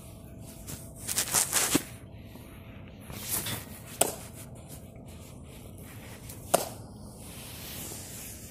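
Handling noise on a phone's microphone: fabric rustling against the phone for about a second, then two sharp knocks a couple of seconds apart.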